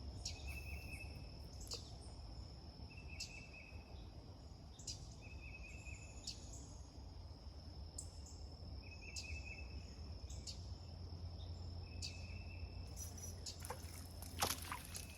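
Insects calling: a steady high buzz with short pulsed chirps repeating every couple of seconds, over a low steady rumble, with scattered faint clicks.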